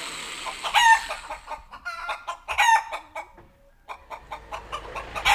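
Rooster crowing twice, about a second in and again near the middle, with short clucking calls between.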